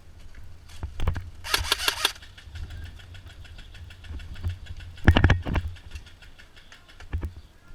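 An airsoft gun firing a rapid full-auto burst about a second and a half in, then fainter fast ticking of more fire. A louder cluster of knocks comes about five seconds in, over a steady low rumble.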